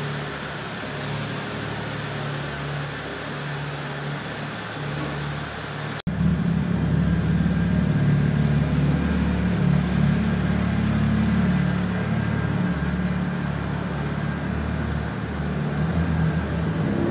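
BMW Z4 E89 sDrive23i straight-six exhaust running steadily. About six seconds in, a sudden cut switches to a louder, fuller exhaust note.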